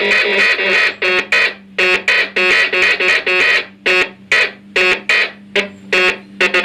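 Boombox synth playing short, buzzy electronic notes in a staccato rhythmic pattern, about two to three notes a second, over a steady low hum.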